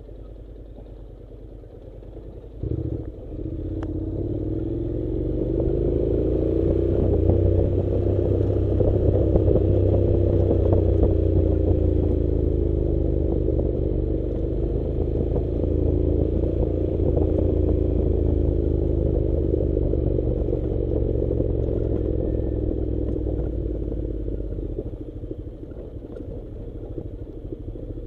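Honda NC700 motorcycle's parallel-twin engine running as the bike rides down a stony dirt track, at low revs at first. After a thump about three seconds in, it pulls harder, its pitch rising and falling, and eases off again near the end.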